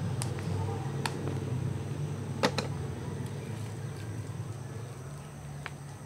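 Sharp clicks and snaps of wire and plastic sheeting being handled at a wire-mesh fence, with a louder double snap about two and a half seconds in, over a steady low hum.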